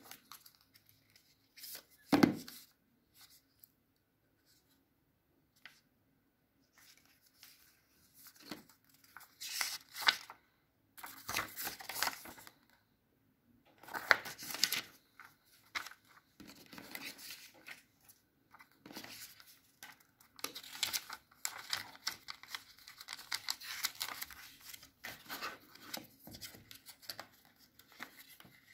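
Paper leaflets and card packaging being handled: rustling, sliding and flipping of pages in irregular bursts with short pauses, with a sharp tap about two seconds in.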